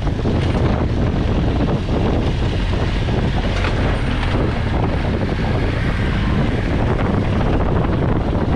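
Adventure motorcycle engine running steadily while riding a rough dirt track, with wind buffeting the helmet-mounted microphone.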